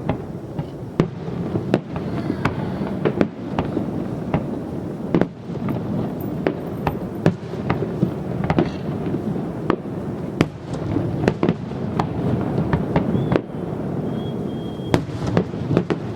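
Fireworks display: an irregular string of sharp bangs, about one or two a second, over a continuous low rumble of shell bursts.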